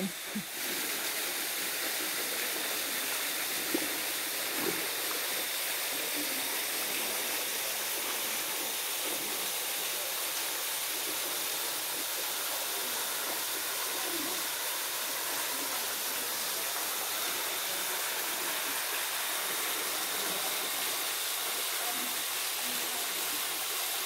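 Steady rushing hiss of a low-flow waterfall spilling down a rock face into a plunge pool.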